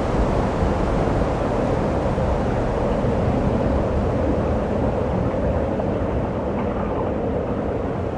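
Steady outdoor ambient noise: a constant rushing din with no distinct events.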